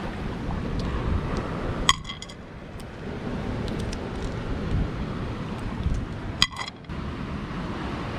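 Small sea snails dropped into a metal cooking pot: two sharp, ringing clinks about four and a half seconds apart, with a few fainter ticks, over a steady wash of surf and wind.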